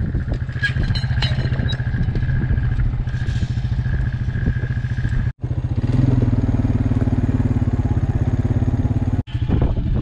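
Quad bike engine running with an even, pulsing beat. After a brief dropout about five seconds in, its note comes back higher, as if under more throttle.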